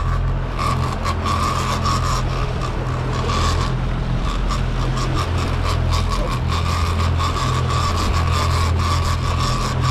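Twin Suzuki outboard motors running steadily with the boat under way, a continuous low hum, while a fishing reel is cranked in on a hooked fish.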